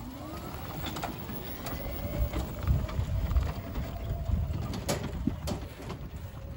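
Golf cart pulling away and driving off: its motor whine rises in pitch over the first couple of seconds as it speeds up, then holds steady, over a low rumble with a few sharp knocks and rattles.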